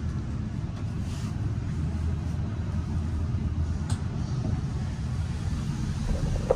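Steady low rumble of a ride inside a cable car gondola, with a single sharp click about four seconds in.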